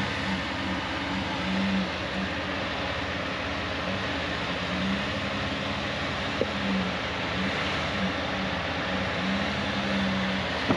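Off-road vehicle engine running steadily, with a hum that comes and goes. A single short click is heard about two thirds of the way through.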